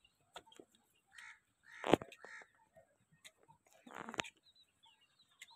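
A few short, harsh animal calls, with a sharp knock about two seconds in that is the loudest sound.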